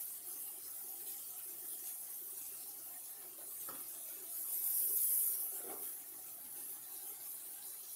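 Sea scallops sizzling as they sear in a stainless steel skillet, a steady hiss that swells louder about halfway through.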